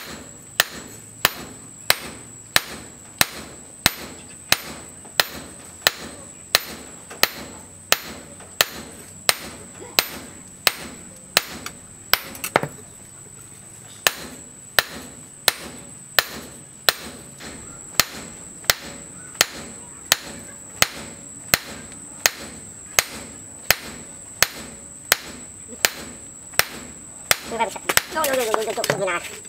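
Hand hammer striking a hot steel knife blank on a post anvil, a steady beat of about one and a half blows a second with a short pause about halfway. Near the end a louder sound with a sliding pitch rises over the blows.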